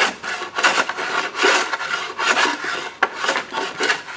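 Hand plane shaving a wooden plank in several short passes in a row, the blade scraping along the wood, trimming a little off the end of a repair plank to fit.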